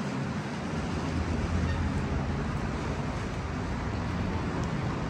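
Steady rain falling, with wind gusting and rumbling on the microphone.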